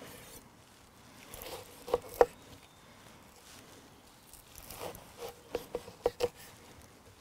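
Kitchen knife cutting through an ember-roasted red cabbage head on a wooden chopping board: faint crunching of the leaves and sharp knocks as the blade strikes the board, twice about two seconds in and in a run of four or five near the end.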